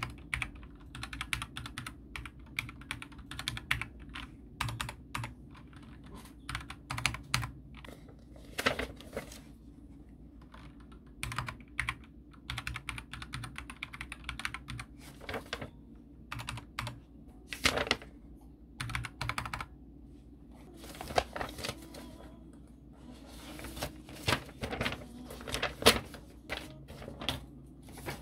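Typing on a computer keyboard: runs of quick key clicks lasting a second or two, with short pauses between them, over a faint steady low hum.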